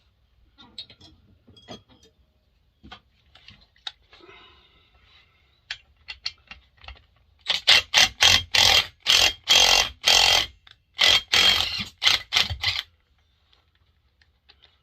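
Scattered light clicks of tools and small metal parts being handled, then a few seconds of loud, sharp metallic clacks at about three a second, from tools worked on a McCulloch 7-10 chainsaw's parts.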